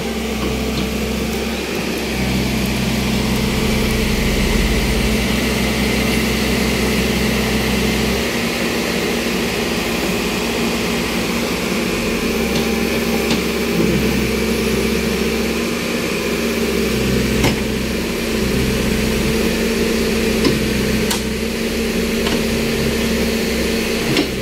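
Engines of a Case backhoe loader and a heavily loaded truck running steadily under load as the backhoe's bucket pushes the truck through deep mud. A few sharp knocks sound in the second half.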